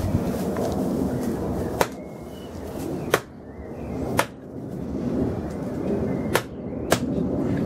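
Hatchet chopping into a skinned sheep's head on stone paving: five sharp blows at uneven intervals, splitting the skull open to get at the brain.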